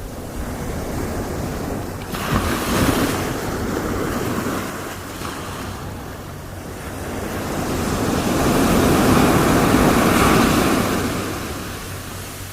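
Ocean waves breaking and washing up on shore, with a steady rush of surf between them. One wave crashes suddenly about two seconds in, and a larger one swells up, peaks and recedes in the second half.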